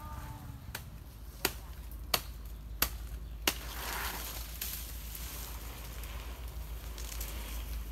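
Five sharp knocks, evenly spaced about two-thirds of a second apart, followed by a rustling hiss, over a low rumble like wind on the microphone.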